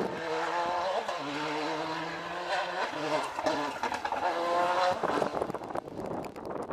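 Ford Escort RS Cosworth rally car's turbocharged four-cylinder engine being driven hard. Its note drops and climbs again through the gear changes, loudest about five seconds in, then goes rougher and fainter as the car pulls away.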